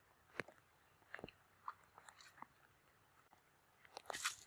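Faint, scattered wet crackles and clicks of a cast net and its rope being hauled in through mud and water, with a brief rustling rush about four seconds in as the heavy net is lifted clear.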